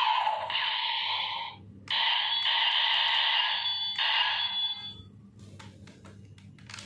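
DX Attache Arrow toy bow playing its electronic sound effects through a small, tinny speaker. The sound breaks off briefly a little over one and a half seconds in, starts again and stops about five seconds in. Near the end there are a few clicks of the plastic toy being handled.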